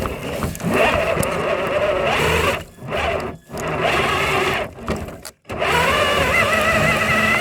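Electric motor and geared drivetrain of a six-wheel-drive Traxxas hauler RC truck whining in three bursts of throttle, its pitch wavering, as the truck strains on a dirt hill and ends up stuck.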